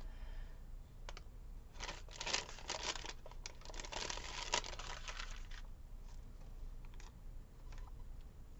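Paper sticker sheet crinkling and rustling as a sticker is peeled off and handled, mostly in a busy stretch from about two seconds in to past the middle, with a few light taps near the end.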